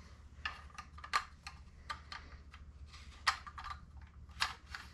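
Light, irregular clicks and taps of a Remington 870's polymer Magpul forend and its fittings being handled and fitted by hand, with a few sharper clicks among them.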